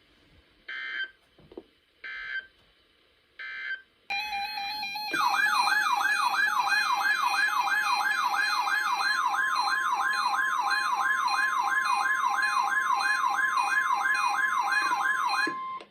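Emergency Alert System alert on NOAA Weather Radio: three short bursts of digital SAME header tones, then a loud warbling alert tone sweeping up and down about three times a second, with a steady tone joining under it. It cuts off suddenly near the end. This opens the second relay of the same tornado-drill test message.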